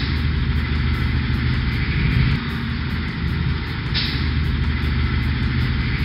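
Heavy vehicle engine sound effect running steadily under load, with a short hiss about four seconds in.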